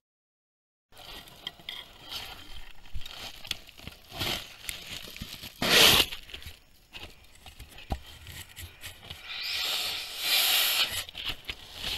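Close rustling and scraping against a camera trap as an elephant handles it. The sound starts after about a second of dead silence and is irregular, with a louder rustle about six seconds in and a longer hissing rustle near the end.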